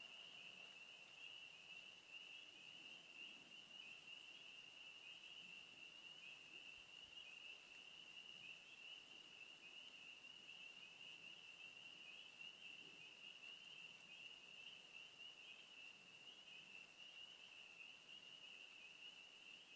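Faint, continuous, high-pitched chorus of insects calling steadily at dusk.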